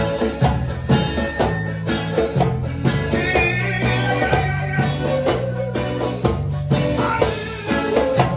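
Live worship music: an electronic keyboard playing held bass notes and chords over a steady beat, with voices singing a wavering melody along with it.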